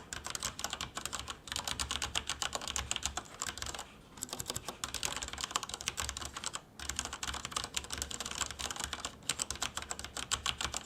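Fast typing on a Corsair K63 mechanical keyboard with linear Cherry MX Red switches: a rapid clatter of keystrokes, twice pausing briefly.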